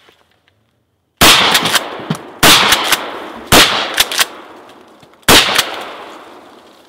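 Four 12-gauge pump-action shotgun shots, about a second or so apart, firing buckshot and trap loads; each shot rings out and trails off, with short sharp clacks in between as the pump is worked to chamber the next shell.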